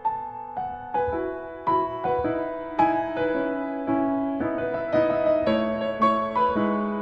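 Background music: slow, gentle solo piano, notes struck about every half second and left to ring.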